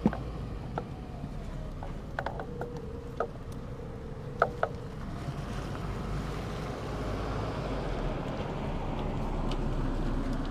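Scattered light clicks and taps of plastic coil-on-plug ignition coils being handled and pushed into the spark plug wells, the sharpest about four seconds in. From about six seconds a steady rubbing noise builds as a jacket sleeve brushes close past the microphone.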